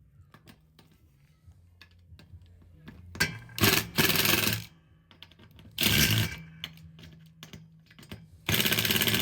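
Power drill/driver driving screws in three short bursts, the last two briefly, with small clicks and knocks of parts being handled in between.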